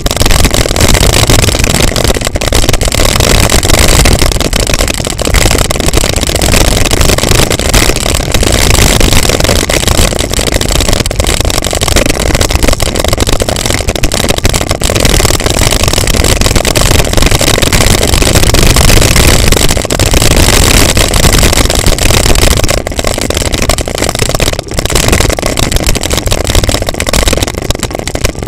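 Wind buffeting the camera's microphone and the mountain bike rattling over a loose gravel track on a fast downhill run: a loud, constant rush and rumble with frequent small knocks.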